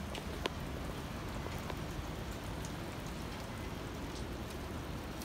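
Steady rain and wind: an even hiss with a low rumble underneath and a few scattered drips ticking close by.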